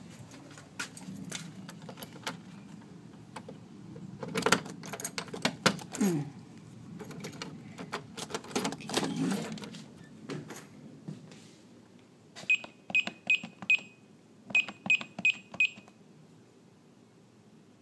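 Clicks, knocks and rustling as an entry door is handled. Then a Brinks home-security keypad beeps as an alarm code is keyed in: two quick runs of short, same-pitched beeps, a second apart.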